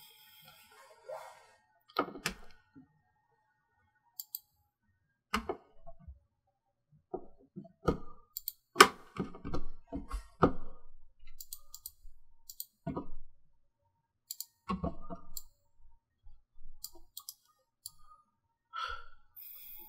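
Scattered computer mouse clicks and keyboard taps, single and in short clusters, at a desk.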